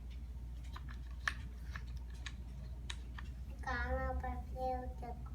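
Light scattered clicks and taps of small toys being handled. About three and a half seconds in, a child's voice makes a drawn-out wordless sound lasting about a second.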